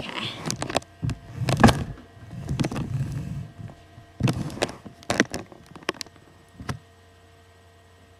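Handling noise from a handheld camera being carried and set down: a run of knocks, bumps and rubbing on the microphone that stops about seven seconds in, leaving a faint steady hum.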